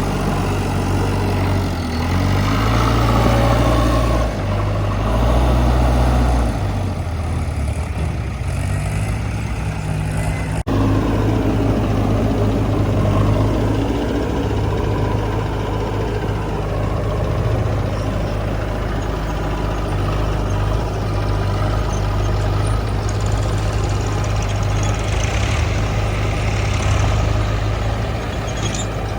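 Diesel engine of a backhoe loader running, its pitch and level shifting with load for the first several seconds. About ten seconds in the sound breaks off abruptly, and after that the engine runs steadily.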